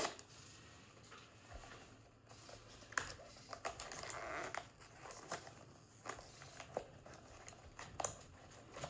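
Packaging being handled: scattered small clicks and taps of cardboard boxes and plastic, with a short rustle about four seconds in.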